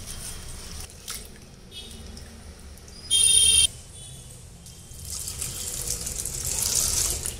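Hands stirring lentils in water in a steel bowl with small clicks, then from about five seconds in, water poured from a plastic jug onto the lentils, getting louder toward the end. About three seconds in, a loud high electronic-sounding tone lasts about half a second and stops abruptly.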